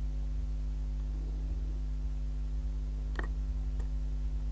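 Steady low electrical hum on the recording, with two short clicks a little past the middle.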